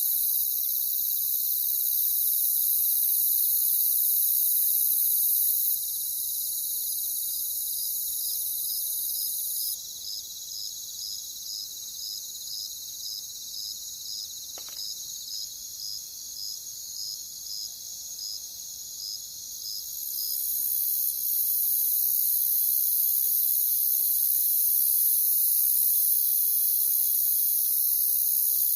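Crickets chirping in a dense, continuous high-pitched chorus. From about a quarter of the way in, one cricket stands out with evenly spaced chirps about twice a second, stopping about two-thirds in; the chorus steps down in loudness and then swells back as the single chirps end, with one faint click near the middle.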